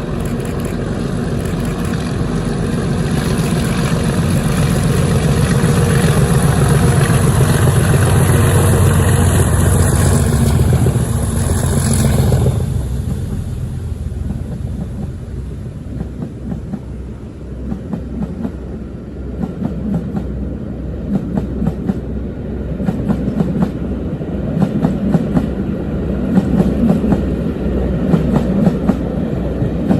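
Class 37 diesel locomotives' English Electric V12 engines working hard on a climb, growing louder, then dropping away sharply about twelve seconds in. Passenger coaches then roll past with a steady clickety-clack of wheels over rail joints.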